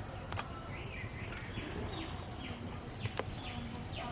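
A bird calling a quick series of short, downward-sliding high notes over a steady low rumble, with a couple of sharp clicks.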